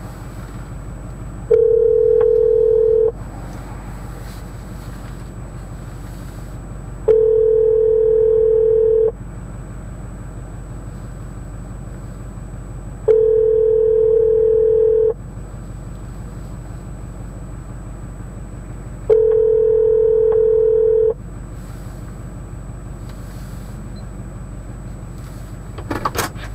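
Telephone ringback tone, the outgoing call ringing four times in a pattern of about two seconds on and four seconds off, over the steady low hum of the stopped car. A brief clatter near the end.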